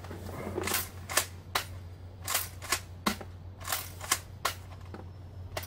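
Unloaded Nerf Zombie Strike Doominator blaster being primed and worked repeatedly: about a dozen sharp plastic clacks and snaps from its pump and rotating barrel mechanism, whose action feels super tight.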